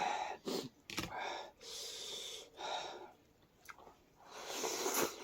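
Slurping of hot noodle soup and loud breathing in and out through mouth and nose while eating: several hissy slurps and breaths, each under a second.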